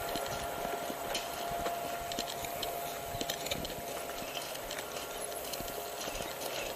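Irregular footsteps and small knocks, over a faint steady tone.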